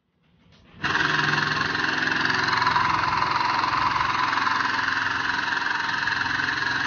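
Air-over-hydraulic foot pump running: its air motor starts abruptly about a second in and runs steadily with a hissing buzz over a low hum, pumping oil to the puller's hydraulic ram.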